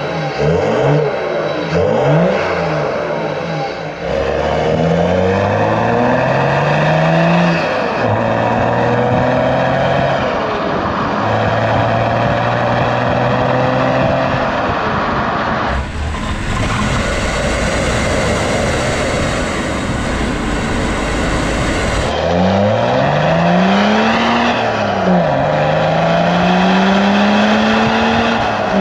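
A BMW 525d's M57 2.5-litre straight-six turbo diesel heard at the tailpipe, with the DPF emptied out. It revs up and down a few times, then accelerates, its pitch rising and dropping back as it goes through the gears. About midway a loud rushing noise covers it for several seconds.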